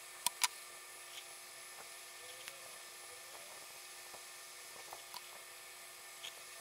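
Faint steady high whine and hiss, with two sharp clicks just after the start and a few lighter clicks later from handling the small circuit board, its wires and pliers.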